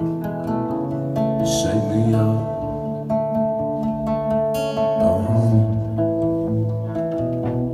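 Acoustic guitar played live, chords strummed and left ringing, the chord changing every second or two.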